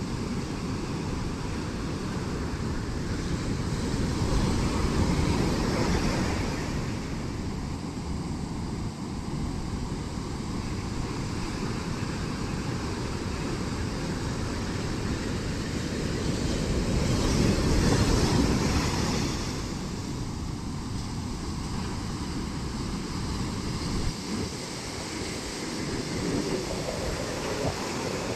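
Ocean waves breaking on the shore, a continuous surf wash that swells with two larger breakers, about five seconds in and again about eighteen seconds in.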